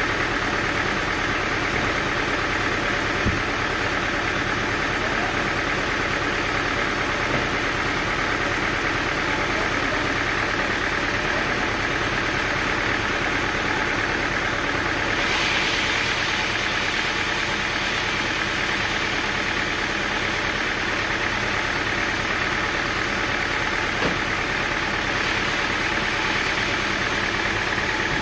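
Sawmill engine running steadily, with a couple of faint knocks.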